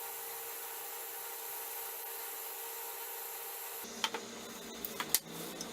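Steady hiss of a Dremel Versatip butane gas soldering iron's burner running, with a few sharp clicks a little past the middle.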